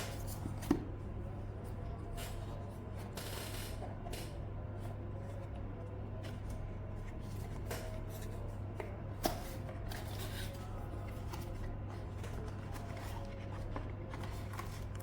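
Scattered small clicks and short rustles of objects being handled, over a steady low hum; two sharper clicks stand out, about a second in and about nine seconds in.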